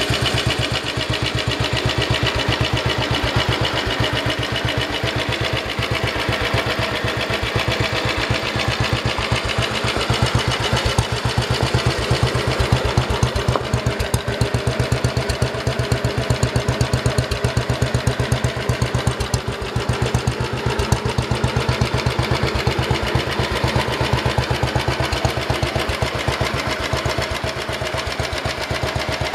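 Matchless G3LS's single-cylinder four-stroke engine idling steadily, its exhaust beats coming at an even rate.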